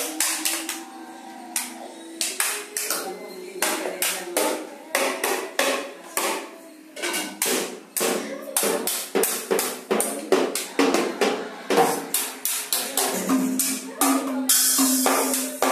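A small child bashing toy drums with sticks in an uneven, irregular beat, mixed with notes from a toy electronic keyboard.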